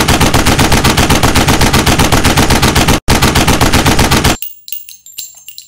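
Automatic gunfire sound effect: rapid machine-gun fire at about ten shots a second, broken by a brief gap just after three seconds. It stops about four and a half seconds in, followed by light metallic clinks and tinkling.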